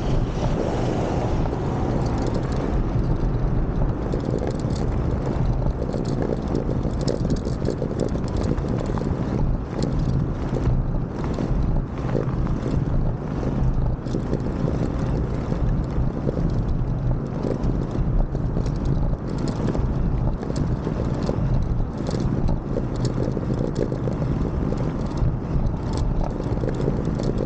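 Moped ridden along the road: wind rushing and buffeting on the microphone over the steady running of its small engine.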